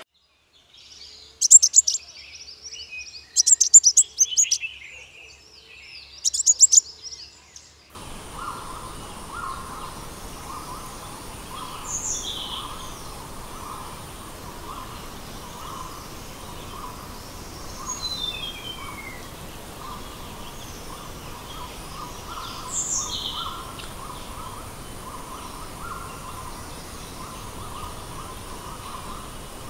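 Three loud, shrill bursts of calls in the first few seconds. Then forest ambience: birds give short falling chirps now and then over a steady, regularly pulsing insect drone and a low hiss of running water.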